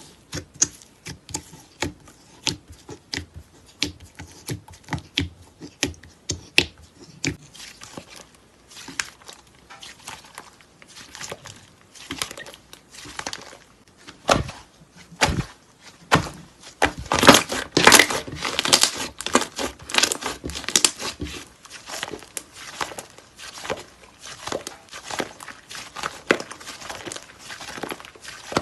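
Slime being worked by hand: a run of small sticky pops and clicks, spaced at first, then turning into denser, louder crackling a little past halfway.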